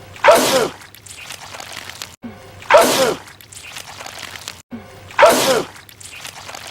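A man sneezing loudly, the same sneeze clip looped: three sneezes about two and a half seconds apart, each a sudden blast following a quieter lead-in.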